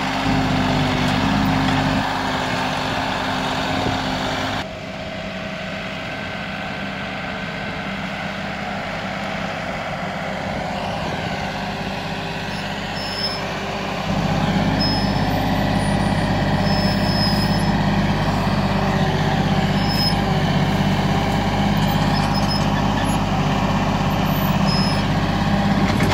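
Kioti tractor's diesel engine running steadily under work, with no speech. The sound changes abruptly about five seconds in and again about fourteen seconds in, where it becomes louder.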